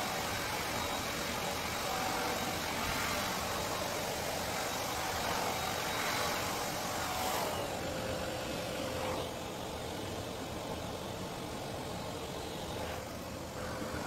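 Hand-held hair dryer running: a steady rush of air over a motor whine. The whine drops in pitch about halfway through, and the sound gets a little quieter soon after.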